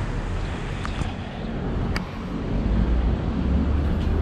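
Steady low engine rumble with wind noise on the microphone; a deeper drone swells a little over halfway through.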